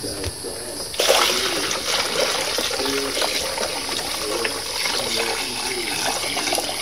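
Liquid poured from a plastic bucket into a large plastic funnel: a steady splashing pour that starts about a second in. The liquid is diluted sodium metabisulfite solution for pickling a watermaker's membrane.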